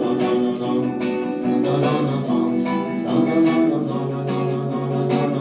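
Instrumental passage of a song: strummed guitar over a steady beat, without vocals.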